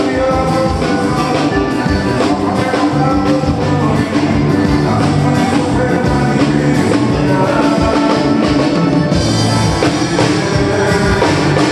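Live forró band playing loud, with accordion, electric bass and drum kit keeping a steady beat.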